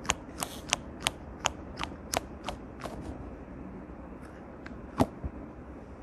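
Green sticky wall-stick squishy ball being squeezed in the hand right by the microphone, giving a quick series of sharp clicks, about three a second for three seconds, then one louder click about five seconds in.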